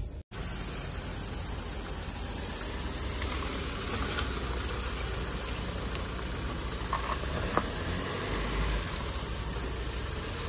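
A dense chorus of insects shrilling in one steady, unbroken high-pitched drone, over a low rumble.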